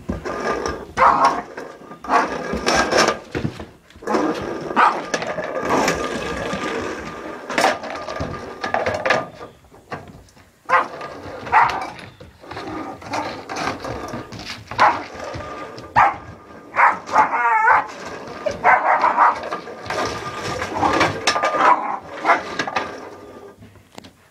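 A puppy barking and yapping in play, with sharp knocks and clatters from a dish being pushed and dropped on a wooden floor. There is a warbling whine about two-thirds of the way through.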